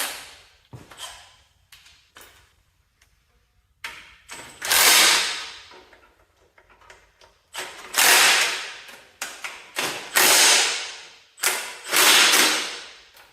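Socket ratchet worked on 1/2-inch bolt heads: four loud rasping bursts of about a second each in the second half, with a few clicks and knocks between.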